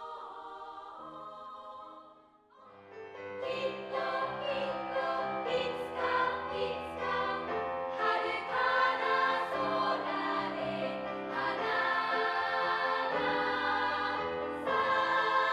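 Girls' choir singing. A quiet held passage fades out about two seconds in, and the choir's song begins a moment later.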